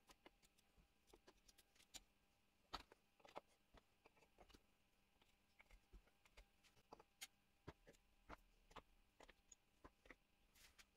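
Near silence broken by faint, irregular clicks and taps: steel drill bits knocking in the holes of a plywood bit holder as it is handled.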